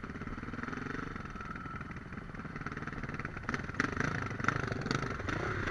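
Enduro dirt bike's engine running at low revs as it rolls slowly over rough trail ground, with scattered clicks and knocks that come more often in the second half.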